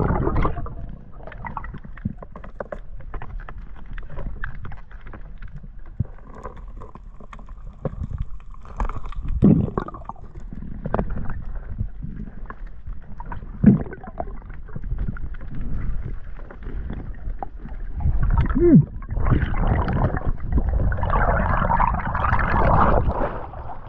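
Underwater sound on a diver's camera: a low, steady rumble of water with scattered clicks and knocks, then a stretch of bubbling near the end.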